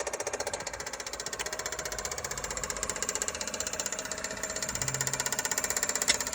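2021 Kia Soul engine running with a fast, even ticking, the noise the owner is recording. A single sharp click comes about six seconds in.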